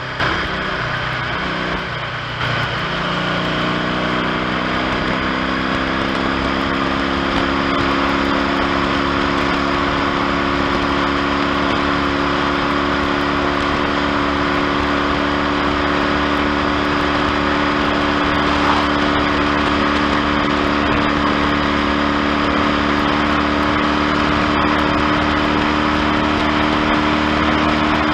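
1970 Triumph T100C's parallel-twin engine pulling along on the road. The note is unsettled for the first couple of seconds, then holds steady and climbs slowly, over a steady rush of noise.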